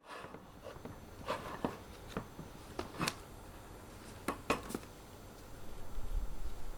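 Irregular light clicks and taps, with low bumps near the end: a product box and its packaging being handled.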